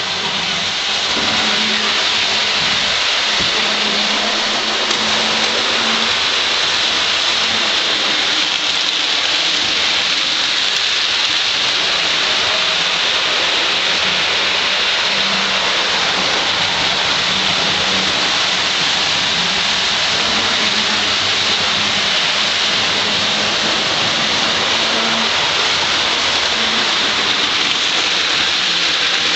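Hornby model trains running on the layout: a steady rolling hiss of wheels on the track, with a faint motor hum that comes and goes.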